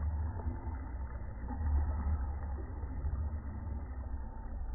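Low, uneven outdoor rumble with no distinct event standing out; no firework bangs are heard.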